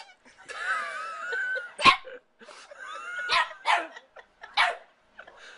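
A dog vocalising: a wavering whine lasting about a second, then four short barks.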